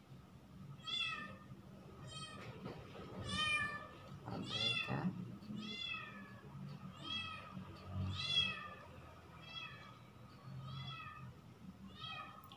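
An animal crying over and over: about ten high-pitched calls, each rising then falling, roughly one every second.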